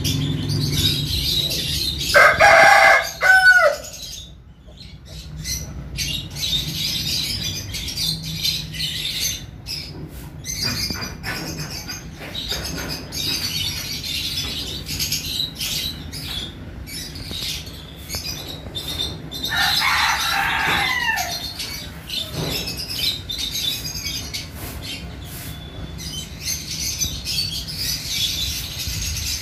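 Rooster crowing twice: a loud crow about two seconds in, and a fainter one about twenty seconds in. Small birds chirp throughout.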